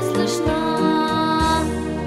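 Background music with sustained melodic notes over a steady bass line.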